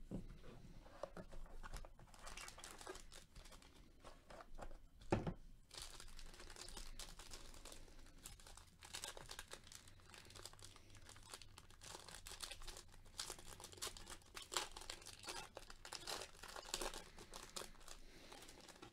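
Faint crinkling and tearing of a foil card-pack wrapper being opened and handled, with one sharper knock about five seconds in.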